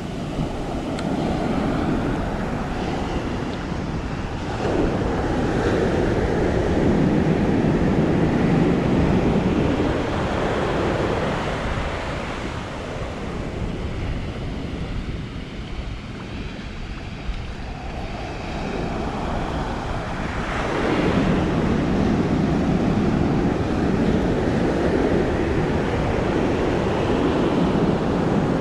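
Ocean surf breaking on a beach: the rushing of the waves swells about five seconds in and again about twenty seconds in, easing between breakers. Wind buffets the microphone.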